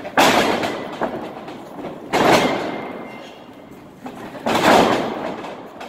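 Wrestling ring struck by trainees' bodies taking rolls and bumps on the mat: three heavy thuds about two seconds apart, each followed by a rumble of the ring that fades over a second or so.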